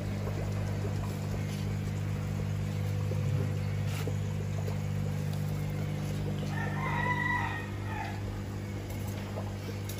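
A rooster crows once, a drawn-out call lasting about a second and a half, around seven seconds in. Under it runs a steady low electrical hum.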